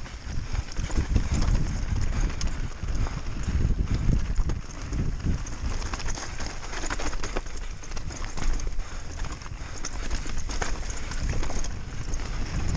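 Mountain bike descending rough ground at race pace, with a continuous irregular rattle and clatter of knocks from the bike over a heavy low rumble of wind on the microphone.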